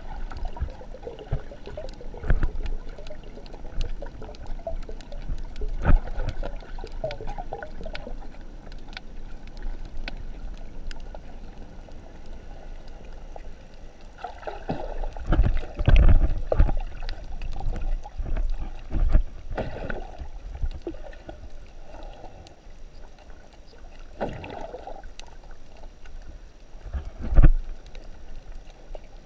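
Muffled underwater water noise picked up through a GoPro's waterproof housing while swimming, with irregular low thumps and gushes of moving water; a cluster of heavier surges a little past the middle and a sharp knock near the end.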